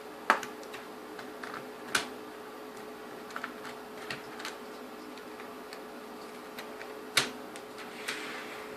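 Sharp clicks and light taps of small plastic parts and hand tools being handled while a climate control unit is reassembled, with three louder clicks: just after the start, about two seconds in and about seven seconds in. A steady faint hum runs underneath.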